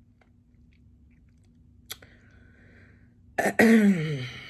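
Faint clicking mouth sounds of chewing, then about three and a half seconds in a short, loud vocal sound from the eater: a sharp start followed by a voiced tone falling in pitch for about a second.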